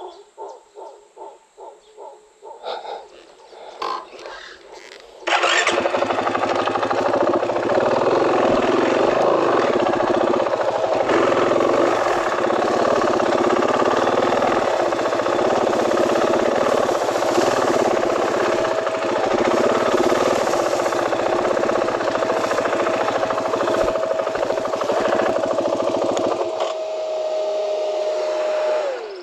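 KTM 500 dual-sport motorcycle's single-cylinder engine starting suddenly about five seconds in and running loud and steady as the bike rides. Near the end it drops away and its pitch falls as it stops. Before it starts there are faint rhythmic calls.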